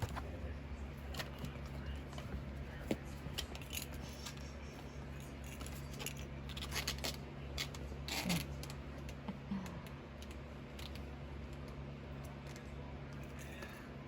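Scattered small clicks and scratches, most of them in the first nine seconds, from month-old Maine Coon kittens scrambling and playing. A steady low hum runs underneath.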